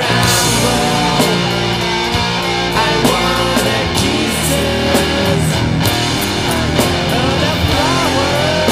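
Rock song played by a band, led by electric guitar, with bending guitar lines over a steady beat.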